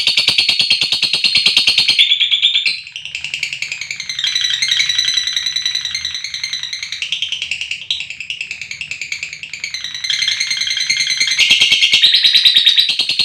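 Lovebirds chattering in long, fast, high-pitched trills (the "ngekek panjang" call), several voices overlapping. The sound dips quieter through the middle and swells louder again near the end.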